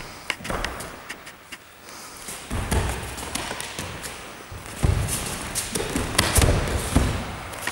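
Bare feet stamping and shuffling on gym mats as two fighters grapple, giving irregular thuds and taps with the rustle of their uniforms; the thuds come more often and heavier from a few seconds in.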